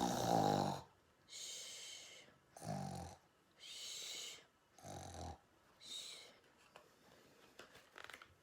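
A person imitating snoring: about three snores on the in-breath, each followed by a hissing breath out, growing fainter and dying away after about six seconds.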